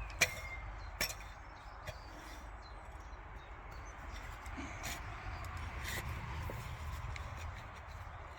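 Garden fork working through soil around lifted potato plants, with a few sharp knocks of the tines, the loudest just after the start and another about a second in, over a low steady rumble.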